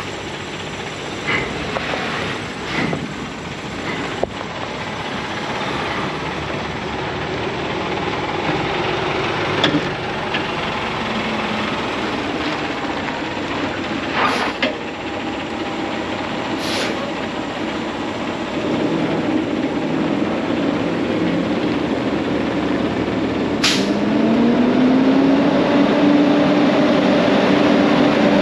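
Diesel truck engine idling, the 2021 Peterbilt 579's Paccar MX13, growing steadily louder, with a few short hisses of air along the way. Near the end a hum rises in pitch and then holds steady.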